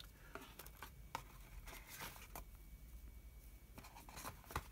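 Faint rustling and small scattered clicks of a cardboard accessory box and its contents being handled, with a sharper click near the end.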